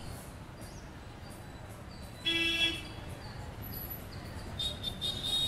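A single short vehicle horn toot, about half a second long, sounds about two seconds in over low steady background noise.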